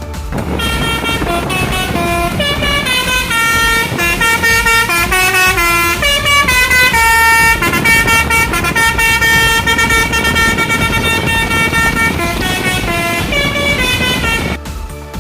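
Tour bus's Basuri telolet horn playing a long multi-note tune: several horn tones sounding together, shifting pitch in steps, over a low rumble.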